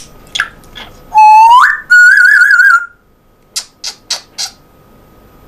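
African grey parrot whistling: one loud whistle that sweeps up in pitch, then a wavering, warbling whistle, followed by four short high clicks.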